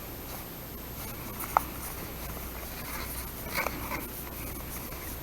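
Quiet, light scratchy handling of trading cards and plastic card sleeves as cards are slid into sleeves, with a short squeak about one and a half seconds in and a couple of small ticks near the end.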